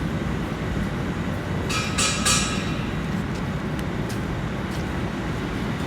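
Stick (manual arc) welding of a pipe root pass with a 3 mm electrode: the arc crackles steadily, with a short louder hissing spurt about two seconds in. The current is turned down slightly over a wider root gap so the arc fuses the edges without burning through.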